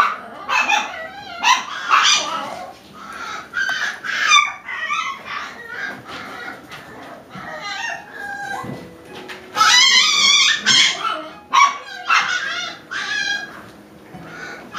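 Five-week-old Alaskan Klee Kai puppies yipping and squealing over and over as they play together, loudest in a run of high yelps about ten seconds in.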